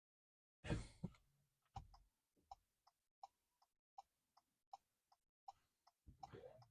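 Ford Maverick turn signal ticking faintly at a steady, normal rate, a tick and a tock about every three-quarters of a second, showing that the LED turn-signal bulbs are not hyperflashing. A louder thump and rustle come just before a second in, and another rustle near the end.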